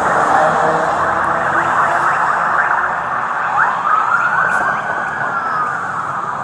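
A siren wailing over steady traffic noise, with one clear rise and slow fall near the middle.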